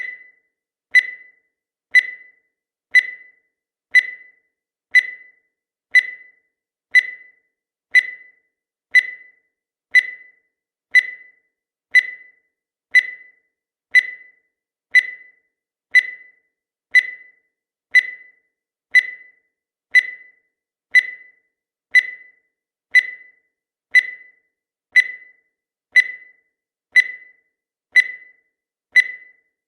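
Countdown timer sound effect: a short high-pitched electronic tick once every second, each one dying away quickly, in a perfectly even rhythm.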